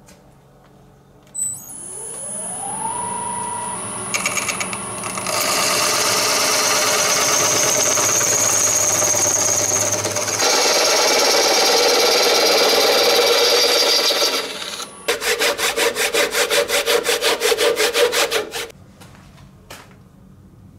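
Woodturning lathe spinning up with a rising whine that levels off, then a tool working the spinning golf-ball-and-epoxy resin blank with a steady scraping hiss. Later the contact becomes a fast pulsing rasp, about six beats a second, before it stops.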